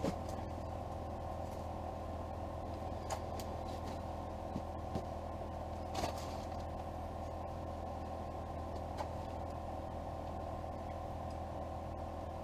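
A steady low mechanical hum with a few light clicks and knocks.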